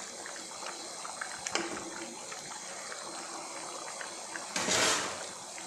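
Rice cooking in boiling water in a wide pan: steady bubbling with small pops, and a short rush of noise about four and a half seconds in.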